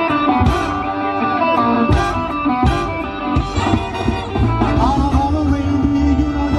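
Live swing band playing a blues in B: an electric guitar leads with bent notes over upright bass and drums.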